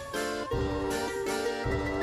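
Background music: a light keyboard-like tune over a steady low beat.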